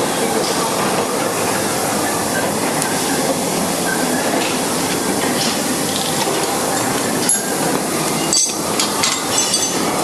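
Steady loud machine noise of a running workshop, with a few sharp metal clicks and knocks from hand tools working on the crusher's blade rotor in the second half.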